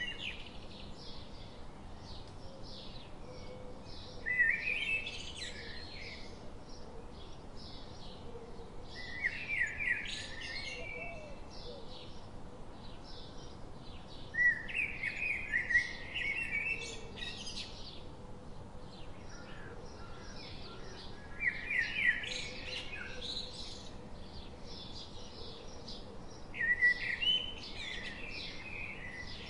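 A bird singing a short chirping phrase again and again, about every five to six seconds, with fainter chirps in between over a steady low hiss.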